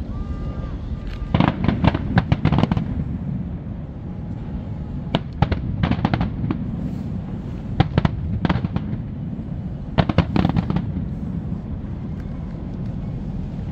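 Fireworks display: rapid crackling bangs in four clusters, about a second and a half into it, around five and a half seconds, around eight seconds and around ten seconds, over a steady low rumble.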